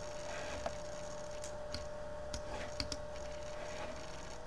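A handful of soft computer mouse clicks in the first three seconds, over a steady electrical hum.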